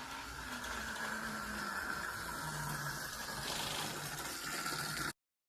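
Electric mini bike's 12-volt DC motor running with a steady whine over a noisy rush, its lower pitch sliding down. It cuts off abruptly near the end.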